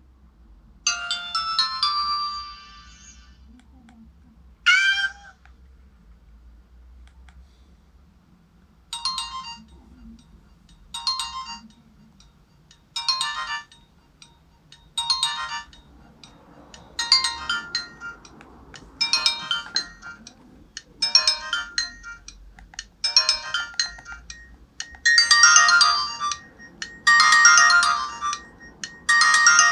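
Nokia 105 (2013) mobile phone playing its built-in ringtones: a short melodic tone and a brief rising chirp, then a ringtone phrase repeating about every two seconds, getting louder with each repeat.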